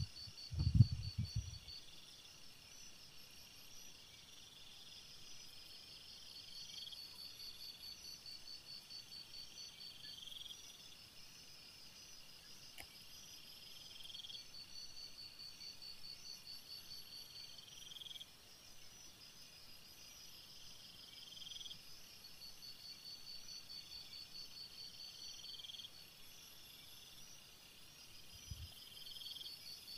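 Night insects, crickets by their sound, chirping steadily in repeated pulsed trills. A loud low thump comes about a second in and a fainter one near the end.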